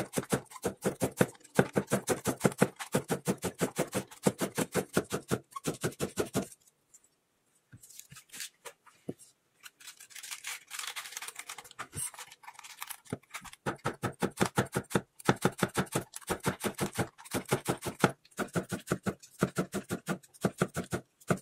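Kitchen knife with a rectangular blade finely shredding cabbage on a wooden cutting board: rapid, even strokes, each a crisp slice through the leaves and a tap on the board. The cutting stops for several seconds in the middle, with only faint handling of cabbage leaves, then starts again.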